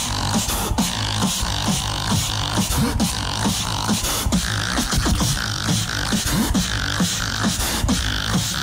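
Live solo beatboxing through a microphone and PA system: a steady, driving beat of vocal kick and snare sounds over a deep vocal bass line whose notes slide down in pitch.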